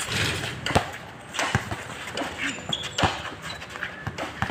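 Basketball bouncing on a concrete court as it is dribbled: a few sharp, separate thumps about a second apart, with players' voices in the background.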